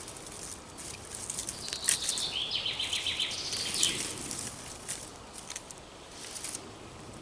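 Firesteel (ferro rod) being struck against tinder: a run of short, sharp, high scrapes and clicks, busiest from about one and a half to four seconds in.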